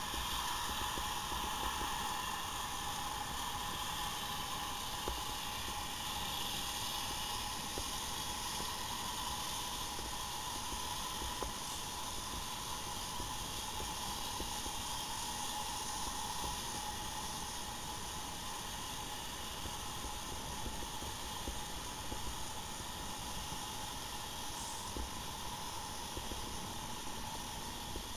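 Steady underwater hiss with a constant mid-pitched hum, with no breathing or bubble bursts.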